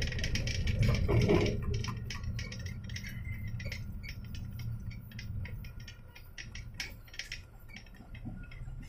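Truck running on the road, heard from inside its cab: a steady low engine and road rumble, with frequent small rattles and clicks from the cab. It grows gradually quieter toward the end.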